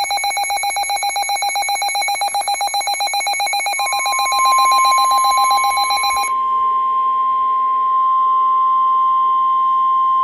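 Emergency alert tones: a loud, fast-pulsing electronic ringing that cuts off sharply about six seconds in. From about four seconds in it is overlapped by one steady pure tone, the long warning alarm tone that precedes a weather-radio warning message.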